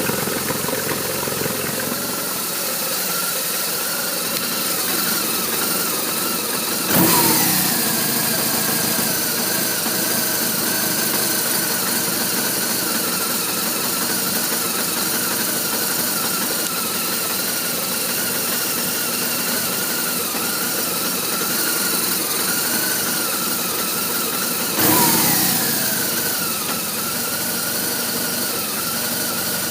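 BMW R1200RT boxer-twin engine idling, an idle the owner calls rough. Twice, about 7 seconds and 25 seconds in, the throttle is blipped and the revs fall back to idle.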